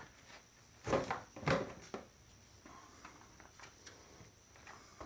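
Handling noise of parts being moved while scrapping electronics: two louder knocks and rattles about a second in, with a few light clicks around them.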